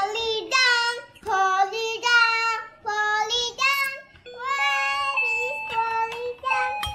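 A young girl singing in short phrases while pressing the keys of a toy play-along keyboard, its thin electronic notes sounding under her voice.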